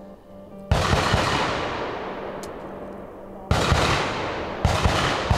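Rapid gunfire with echo. A long burst starts just under a second in and dies away, a second burst comes about three and a half seconds in, and several quick single shots follow near the end, over background music.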